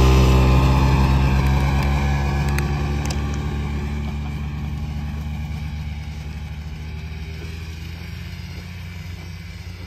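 Polaris RMK snowmobile engine running at steady revs as the sled drives away, fading steadily into the distance.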